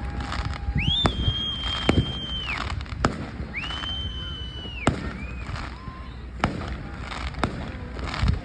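Fireworks going off: scattered sharp bangs and pops throughout, with two long high-pitched whistles, each about a second and a half long, one starting about a second in and the next a couple of seconds later.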